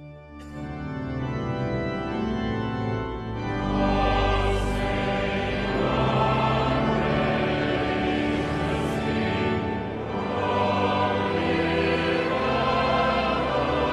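Choir singing with organ, long held chords; it starts out of silence and swells over the first few seconds.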